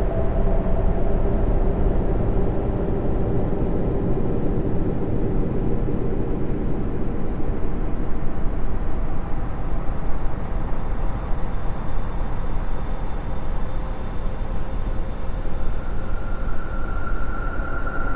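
Continuous rumbling, hissing ambient drone presented as the sound of Jupiter's moon Callisto, with faint held tones low in the mix. A higher steady tone comes in near the end.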